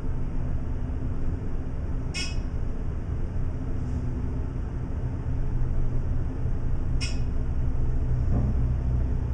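Dover elevator car travelling between floors: a steady low rumble and hum of the ride, with two short high beeps about five seconds apart.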